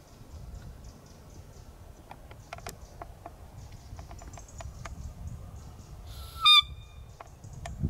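A roe deer call (Blatter) blown once, about six seconds in: a short, high, pitched squeak imitating a doe's fiep, used in the rut to lure bucks. Faint clicks and high chirps sound before it.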